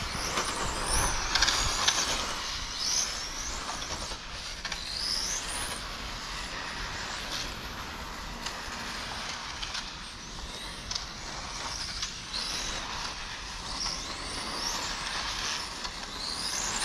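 1/8 scale electric on-road RC race cars (Serpent 989e/990e pan cars) running on the circuit: repeated short rising whines of the electric motors and gears as cars accelerate past, over steady tyre and drivetrain noise.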